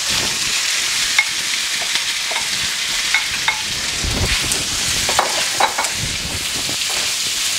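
Sliced hot dog sausages sizzling steadily in hot oil in a skillet, with scattered pops and a wooden spoon knocking and scraping as they are tipped in and stirred.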